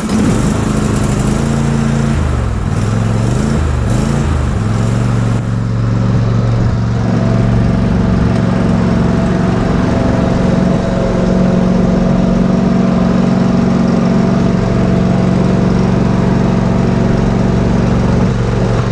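Zero-turn riding lawn mower's engine running just after being started, its speed dipping and rising for the first few seconds, then running steadily.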